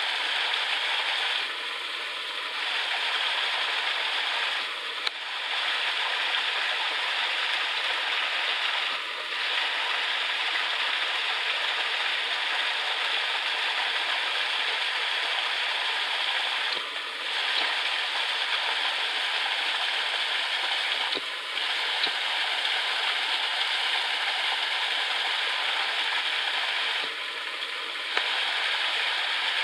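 Waterfall: the steady rush of falling water, dipping briefly in level a few times.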